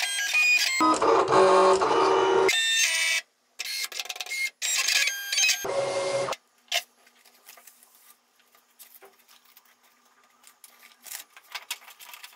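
Silhouette Cameo cutting machine at work: its stepper motors whine in shifting tones as the blade carriage and rollers move, with two short pauses, until they stop about six seconds in. After that there are only faint clicks.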